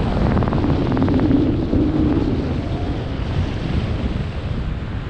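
Steady wind noise buffeting the microphone of a camera flying under an open parachute canopy, heaviest in the low end.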